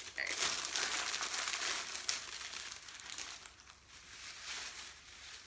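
Plastic packaging crinkling and rustling as it is opened and the wrapped items inside are handled, busiest for the first three seconds and thinning out after that.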